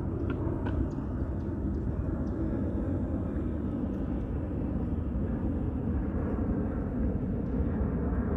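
McDonnell Douglas MD-11F freighter's three jet engines at climb power, a steady low rumble.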